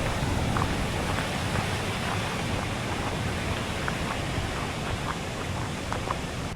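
Wind buffeting the microphone: a steady rushing noise with a heavy, fluctuating low rumble, which drops away sharply at the very end.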